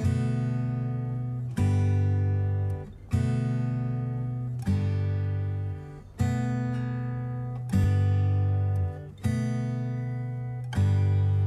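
Background music: acoustic guitar chords struck about every second and a half, each left to ring out and fade.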